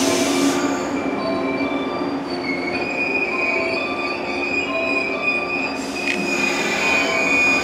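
Electric multiple-unit train rolling slowly along a station platform, its wheels squealing in several steady high-pitched tones over the running rumble. A short hiss and click come about six seconds in.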